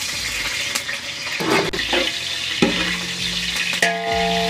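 Green chillies sizzling in hot oil in a large aluminium pot while a long-handled ladle stirs them. From about halfway in, the ladle knocks against the pot a few times and the pot keeps ringing.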